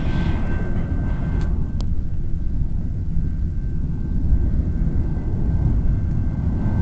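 Freight train cars rolling past, a steady low rumble from the wheels on the rails. Two sharp clicks come about a second and a half in.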